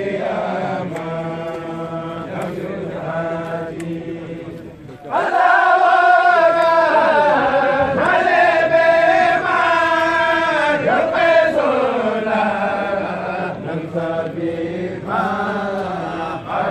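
A large group of men chanting an Arabic religious poem in unison, a Mouride khassida, in long drawn-out melodic lines. The singing drops briefly and then comes back louder about five seconds in.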